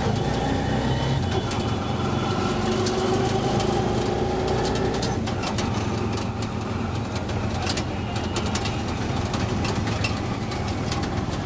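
Auto-rickshaw ride heard from inside the passenger compartment: its small engine runs with a steady low drone, mixed with the noise of surrounding street traffic and frequent sharp clicks and rattles.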